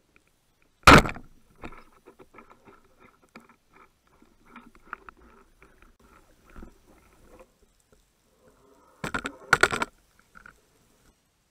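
Underwater speargun shot: one sharp, loud crack about a second in, followed by scattered faint clicks and rattles of gear and line. Near the end comes a loud burst of splashing and breath as the diver breaks the surface.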